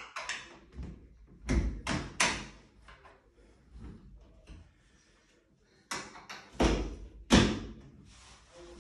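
Newly hung interior door being swung and pushed shut against its jamb, with two clusters of sharp knocks and bumps: one about a second and a half in, another about six seconds in, the loudest near the end.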